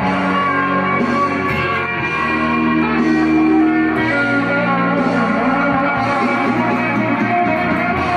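Ibanez electric guitar playing held notes and chords, the notes changing every second or so.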